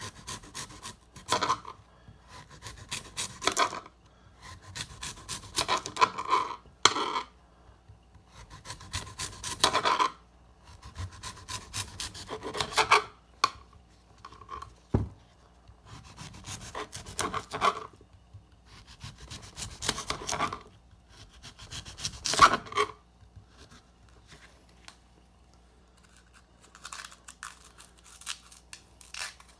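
Kitchen knife sawing through a raw sweet potato on a glass cutting board, slicing it into thick rounds. Each cut is a rasping stroke about a second long, repeated every two to three seconds, with one sharp tap about halfway through.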